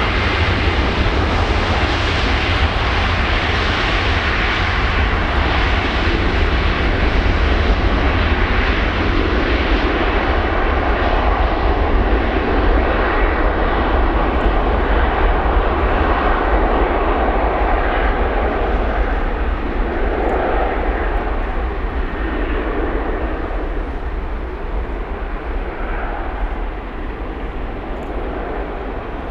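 Embraer 190 jet engines running at takeoff power: a loud, steady jet roar. The roar slowly fades and loses its high end over the last third as the aircraft moves away.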